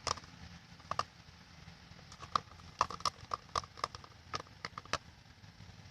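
Spoon stirring a clear-glue and shaving-cream slime mixture as borax activator goes in: scattered, irregular clicks and taps against the container.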